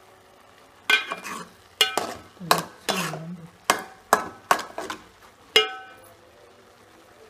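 Metal spoon stirring cooked rice in an aluminium pot, clinking and scraping against the pot's side about nine times with a short metallic ring.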